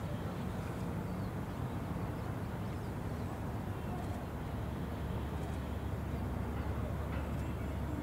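Steady low outdoor rumble that swells slightly about five seconds in, with a few faint ticks over it.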